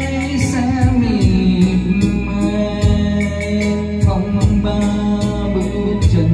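A man singing into a handheld karaoke microphone over a backing track with a steady drumbeat, holding long notes with a wavering vibrato.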